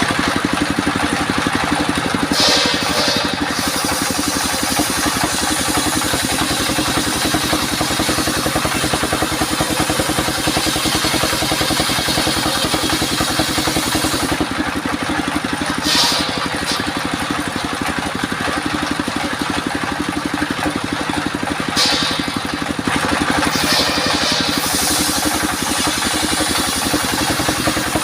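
Engine of a homemade sawmill circular saw running steadily with a fast, even pulse, with a few short high hissing bursts along the way.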